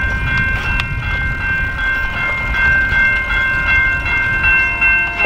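Rail bike rolling along the track: a steady low rumble from the steel wheels on the rails, with several steady high ringing tones held above it.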